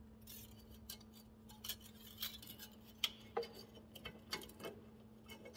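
Faint, irregular small metal clicks and taps as exhaust flange bolts are fitted and turned by hand at a snowmobile's turbocharger outlet, over a faint steady hum.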